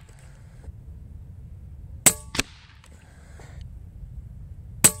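Two shots from a .22 Daystate Pulsar PCP bullpup air rifle, about three seconds apart. After the first shot comes a second, fainter crack about a third of a second later: the pellet striking the target at 50 yards.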